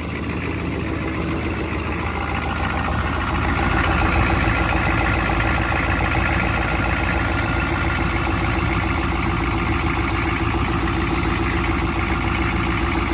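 A 1996 GM 6.5 L turbo diesel V8 idling steadily shortly after a cold start, the engine still cold. It gets a little louder about three seconds in, then holds steady.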